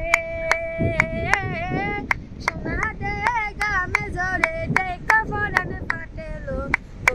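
A young girl singing a Bengali song unaccompanied, opening on a long held note, while clapping her hands in a steady beat of about two and a half claps a second.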